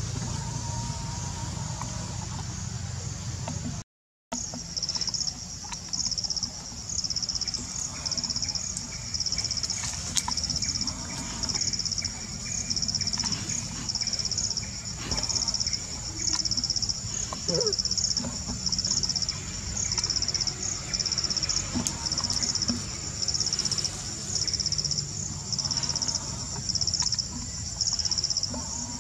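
Insect chorus: a high-pitched buzz that pulses about once a second, over a low steady rumble. Only the rumble is heard for the first four seconds; the sound then drops out briefly before the pulsing buzz begins.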